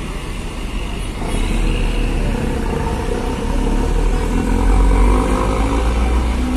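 Heavy truck's diesel engine pulling past at close range, its low rumble growing louder to a peak about five seconds in.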